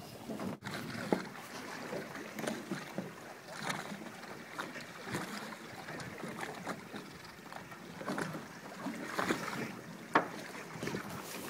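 Wind buffeting the microphone and water slapping against a small boat's hull on choppy open sea, in irregular gusts and splashes.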